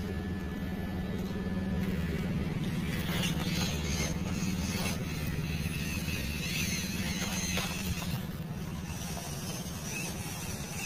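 The small brushed electric motor and gearbox of an MN99 Defender 1/12-scale RC crawler run as a steady hum while it drives slowly over roots and dirt. The hum drops a little in pitch about two seconds in.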